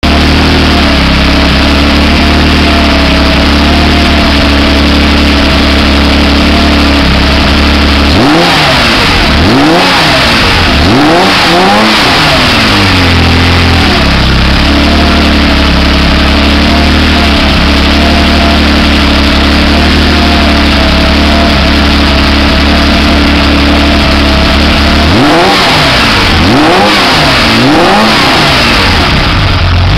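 Freshly rebuilt Porsche 911SC 3.0-litre air-cooled flat-six running on an engine test stand through a stainless muffler. It idles steadily, then is blipped by hand at the throttle linkage in a quick run of revs about eight seconds in, settles back to idle, and is blipped again near the end.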